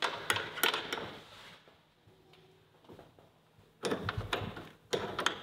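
Hand tools and small metal fittings clicking and clattering in irregular bursts, with a quiet gap in the middle.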